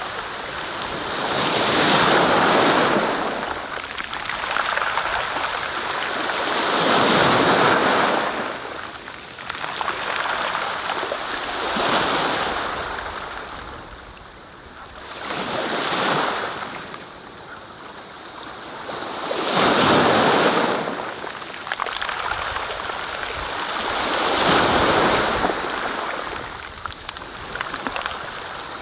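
Surf: a rushing wash of waves that swells and fades about every four to five seconds.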